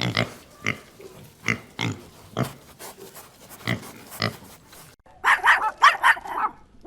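Piglets grunting in short separate oinks, roughly two a second. About five seconds in comes a busier run of quick, higher-pitched squeals.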